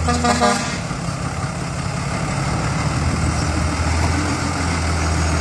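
Diesel engine of a loaded Mitsubishi Fuso six-wheel dump truck running steadily as the truck creeps forward. A brief pulsing toot sounds right at the start.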